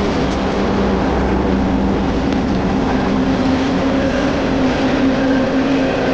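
Train passing, a continuous steady rumble with a low steady engine tone underneath.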